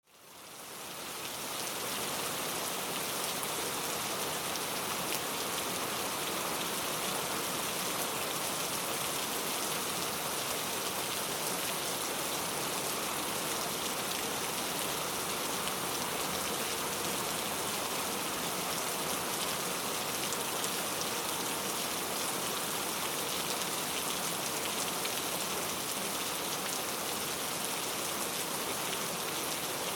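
Steady, dense rainfall hissing down, fading in over the first second or two and then holding even throughout.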